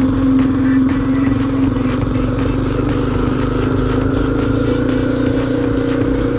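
Honda CRF250L single-cylinder engine running steadily at low revs.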